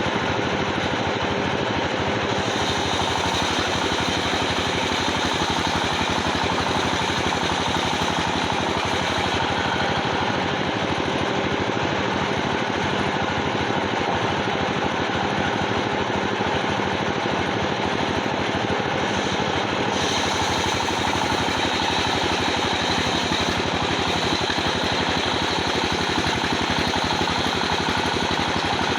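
Sawmill machinery running steadily, an engine-like drone with a fast, even pulse. The high hiss changes level about 2, 9 and 20 seconds in.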